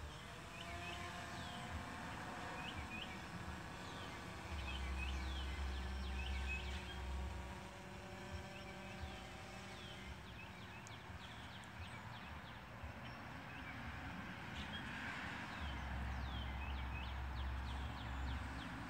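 Small birds chirping over and over with short, quick calls, and a low rumble that comes and goes twice.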